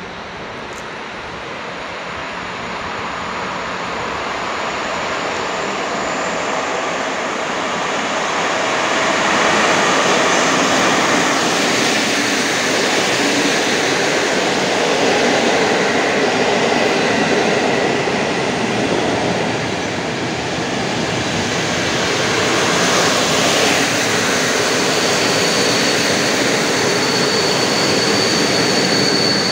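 PKP Intercity passenger train hauled by an EP07 electric locomotive approaching and rolling past on the station track, growing louder over the first several seconds as the coaches run by. Near the end a thin, high, steady squeal of the wheels sets in.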